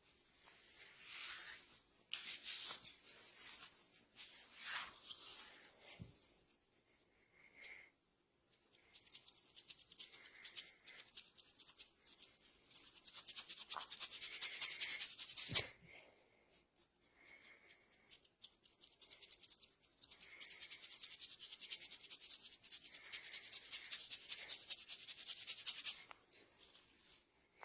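Hands rubbing a person's hair and scalp in a head massage. Slow swishing strokes come first, then fast rhythmic rubbing at several strokes a second. One sharp click comes about halfway through.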